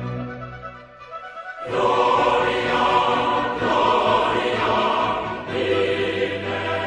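Background music with choir and operatic singing, swelling much louder about two seconds in.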